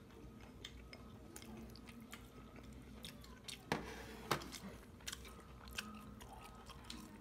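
Quiet chewing and eating at a table, with light clicks of a spoon and chopsticks against dishes. Two louder knocks about halfway through come as a bowl is set down.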